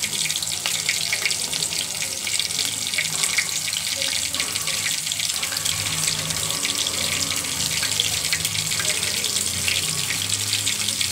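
Rohu fish steaks shallow-frying in hot oil in a kadai: a steady sizzling hiss, thick with small crackles and pops.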